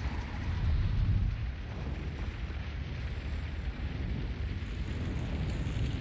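Steady deep rumbling with hissing noise over it, swelling briefly about a second in: film sound of wind and sea around a surfaced U-boat during a night convoy attack, moments after a torpedo launch.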